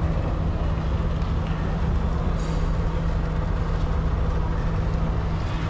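A steady low mechanical hum: one constant tone over a rumble, unchanging throughout.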